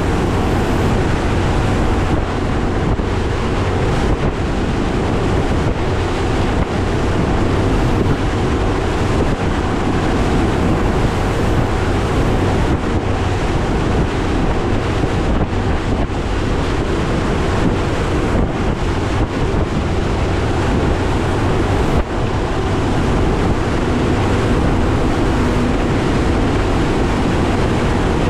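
Mercury Pro XS 200 outboard running steadily as the bass boat crosses rough, choppy water, under a heavy rush of water and wind noise on the microphone.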